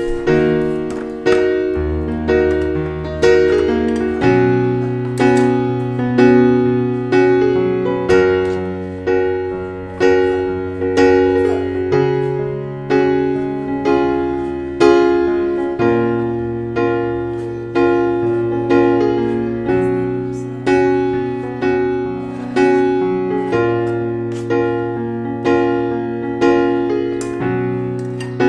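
Background piano music: a solo piano playing an even run of struck notes over low bass notes that change every few seconds.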